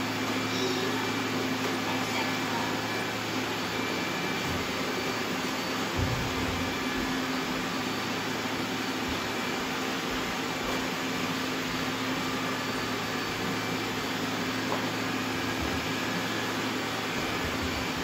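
Many robot vacuums running at once: a steady blend of suction-fan whir and motor hum.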